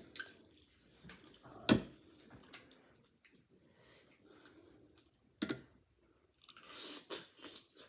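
Metal spoon and fork clicking against steamed clam shells and a glass bowl, with two sharp clinks, then wet eating sounds near the end as a clam is taken into the mouth and chewed.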